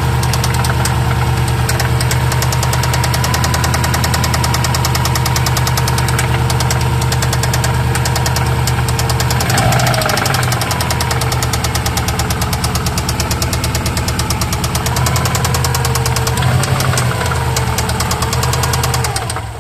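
Subaru boxer engine running with a steady, rapid knock. The owner cannot tell whether it is rod knock or piston slap. The engine briefly picks up a little about halfway through and again near the end.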